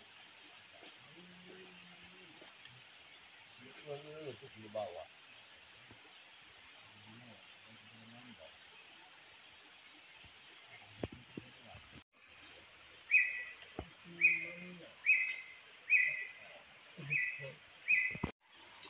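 Steady, high-pitched drone of forest insects, cut off abruptly twice, with faint low voices underneath. In the second half, six short high calls repeat about once a second.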